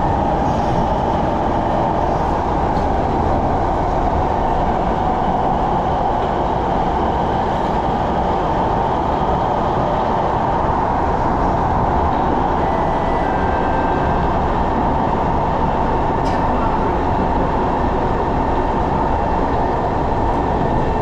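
Singapore MRT train running steadily on the rails, a loud continuous rumble of wheels and running gear, with a faint thin whine for a moment about twelve seconds in.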